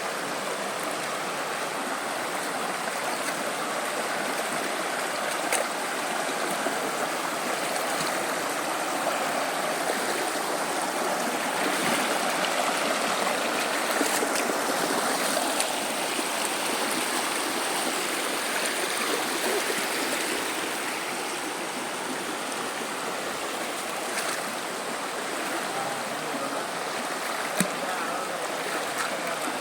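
River water rushing steadily, with a few faint clicks here and there.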